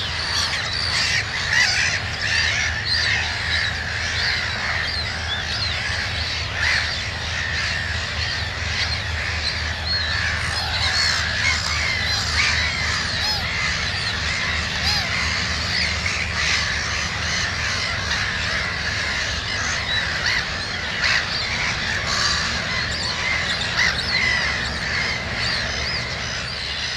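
Black-headed gull colony calling: many short cries overlapping continuously.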